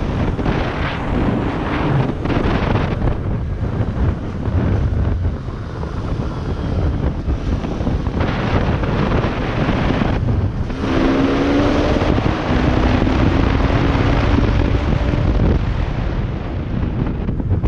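Bajaj Pulsar RS200 motorcycle's single-cylinder engine running under way, with heavy wind noise on the microphone. About eleven seconds in, the engine note rises slowly in pitch for a few seconds as the bike accelerates.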